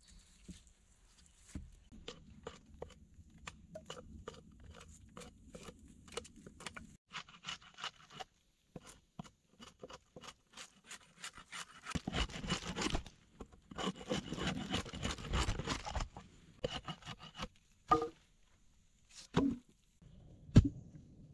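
A hatchet blade worked against a log post: scattered light clicks and scrapes, then about halfway through two spells of heavy scraping as the blade shaves bark and wood from the log. A few short knocks near the end.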